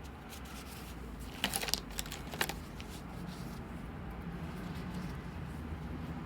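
A few brief clicks and rustles of something being handled, over a low steady hum.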